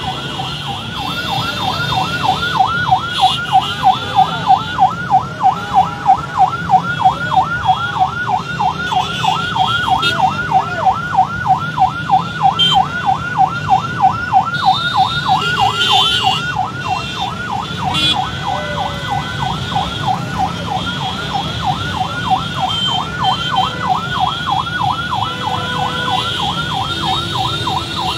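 Electronic yelp siren: a rising whoop repeated about three times a second without a break, over the low din of motorbikes and road traffic.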